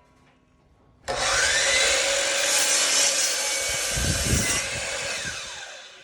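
Miter saw switched on about a second in, its blade whining up to speed and crosscutting a 2x3 board, with low thumps about four seconds in. The saw then winds down with a falling whine near the end.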